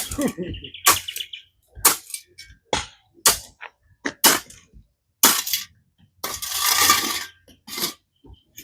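Repeated sharp strikes of a hand tool on hard ground, about one a second, as a trench is dug. A longer scraping rush a little past the middle.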